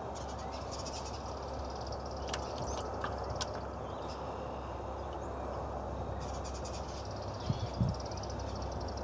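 A bird trilling in the background, a rapid high trill of about two seconds near the start and again near the end, over steady outdoor background noise. A few light clicks from handling engine parts.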